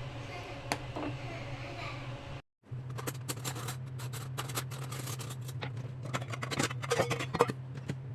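Kitchen handling noise: a run of sharp clicks and knocks over a steady low hum, busiest in the second half.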